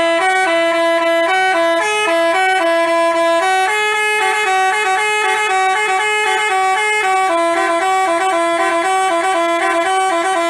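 A telolet basuri horn playing a quick melody of short stepped notes, loud and without a break.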